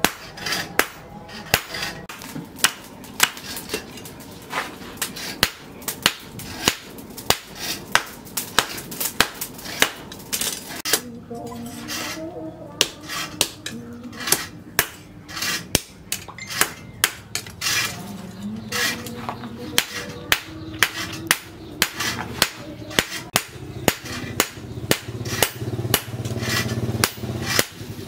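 Hand hammer striking a red-hot steel knife blade on an anvil, a steady run of ringing metal blows about two a second, with a short pause near the middle: the blade is being forged to shape.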